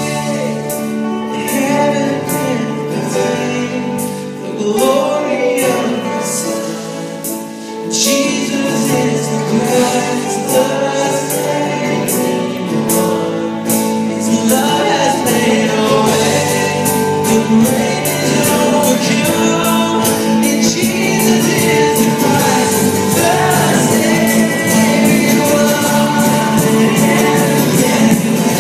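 Live worship band playing and singing: acoustic guitar, electric guitar, keyboards and drum kit under a male lead voice with female and male backing singers. The music eases off for a few seconds, comes back in with a loud hit about eight seconds in, and from about halfway the drums drive a steady beat.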